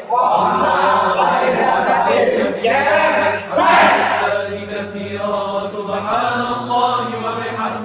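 Men's voices chanting together in unison, with a loud group cheer breaking in about three and a half seconds in.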